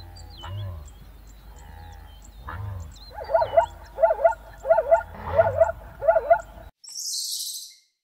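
An animal calling: a few soft low calls, then a run of five loud calls about two-thirds of a second apart, each rising and falling in pitch. The sound cuts off suddenly, followed by a short burst of high hiss.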